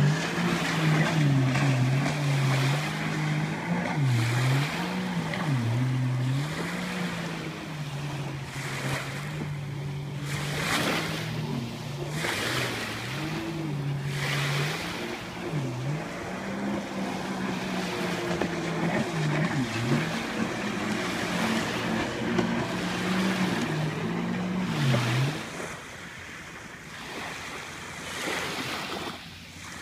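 Jet ski engine droning across the water, its pitch repeatedly dipping and rising again as the throttle changes, then cutting out near the end. Small waves wash along the shore throughout and are all that is left once the engine stops.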